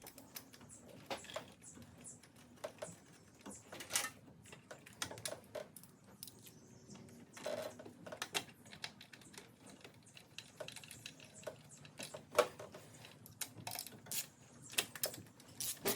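Irregular small clicks, taps and clinks of metal parts and hand tools as a bracket is fitted back onto the engine, with the loudest click about twelve seconds in.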